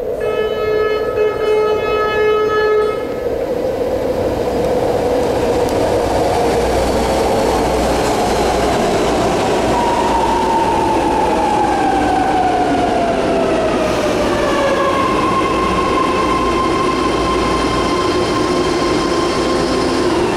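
A BART train arriving at the platform. A horn sounds for about three seconds at the start. Then the train's high whine slides steadily down in pitch as it brakes, and settles into a steady whine near the end as the train comes to a stand, over a constant rumble.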